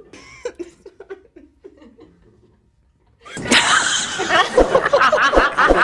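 Women laughing: first soft, choked laughter, then after a brief silence about three seconds in, a loud, high laugh in quick repeated peals.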